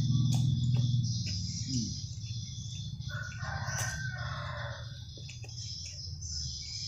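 A rooster crows once, about three seconds in, the crow lasting just over a second, over a steady high-pitched drone. A low rumble fades away over the first two seconds.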